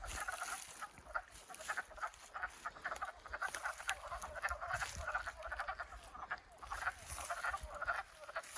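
Chorus of wood frogs calling from a vernal pool: many overlapping short, duck-like clucks running continuously.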